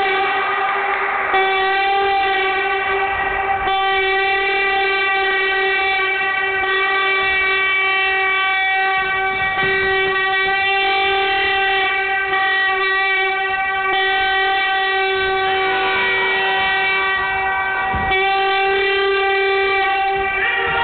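A curved hand-held horn blown as one long, steady note, held for nearly twenty seconds with only a few brief wavers in the tone.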